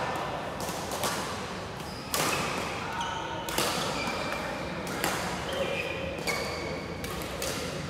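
Badminton rackets striking shuttlecocks, sharp echoing hits about every second or so, with short high squeaks of court shoes on the wooden floor and chatter in the background.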